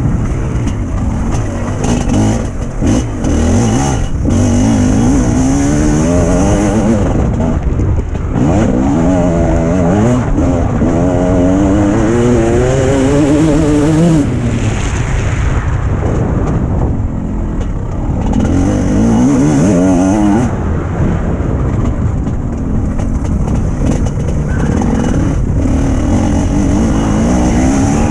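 Motocross bike engine heard onboard, revving hard as the rider accelerates, its pitch climbing and then dropping back again and again with gear changes and throttle lifts.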